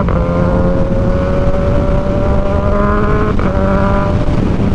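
Kawasaki Ninja 1000SX inline-four engine pulling hard through a loud aftermarket AR shorty exhaust, its pitch climbing steadily. It makes two quick upshifts, one right at the start and one about three and a half seconds in, each a brief cut in the engine note, with wind rush over the microphone.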